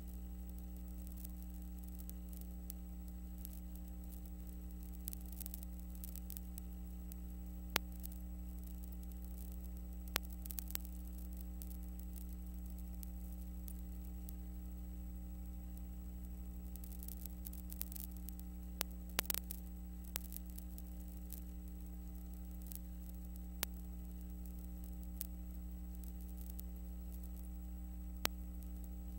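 Steady electrical hum with a faint hiss, broken by scattered sharp clicks. The footage has no soundtrack, so this is noise from the recording and transfer chain rather than from the game.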